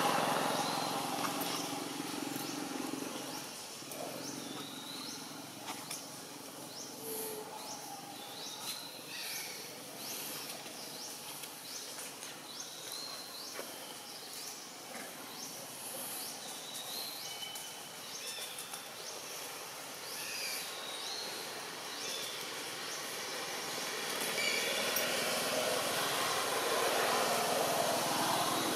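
Outdoor ambience: short high chirps of wild animals scattered throughout over a steady hiss, with traffic noise that is louder at the start and swells again near the end.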